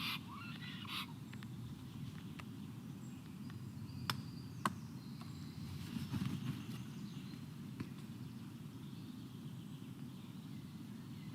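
Steady low outdoor background rumble at a forest stork nest, broken by a few sharp clicks or knocks about four, five and eight seconds in, with faint distant bird calls in the middle.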